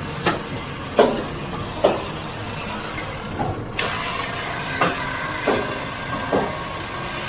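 Flour bag-filling and stitching line running: a steady machine hum with sharp, irregular knocks and clacks about once a second.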